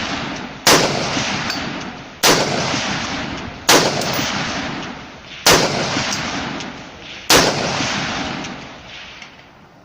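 Five rifle shots from a WK180C in .223, fired one at a time about one and a half to two seconds apart. Each crack is followed by a long rolling echo that fades before the next shot.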